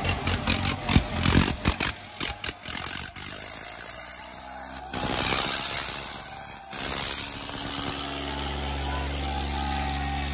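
Diesel tractor engines running hard under load in a tractor tug-of-war, broken by a run of sharp knocks in the first three seconds. About eight seconds in, an engine settles into a steady, even drone.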